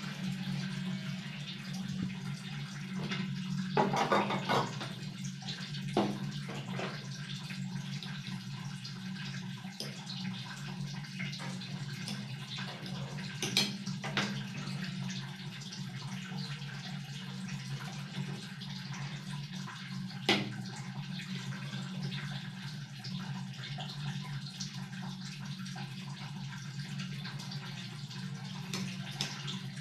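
A steady rushing noise throughout, with a few light clicks and knocks as green bell peppers and a spoon are handled while the peppers are stuffed.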